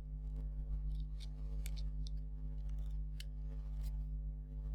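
Steady low electrical hum, with a few faint, scattered clicks and ticks.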